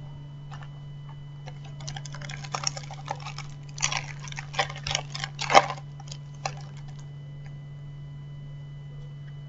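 Foil wrapper of a trading-card packet being torn open and crumpled: a run of sharp crackles that starts about two seconds in, is loudest in the middle and dies away about seven seconds in, over a steady low hum.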